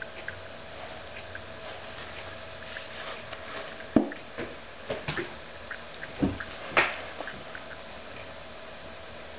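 Small pops, ticks and gurgles of gas bubbles rising and bursting in a test tube of 3% hydrogen peroxide over silver crystals. Faint ticks are scattered throughout, with a cluster of louder pops in the middle. The peroxide is reacting with the crystals, which shows palladium co-plated in the silver, since pure silver should not react with hydrogen peroxide.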